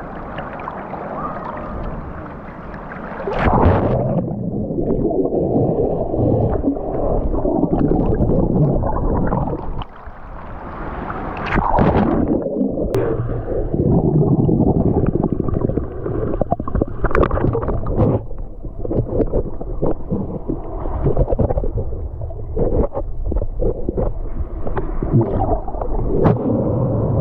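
Muffled water gurgling and sloshing around a camera held in and out of the water while swimming, with frequent small knocks and splashes.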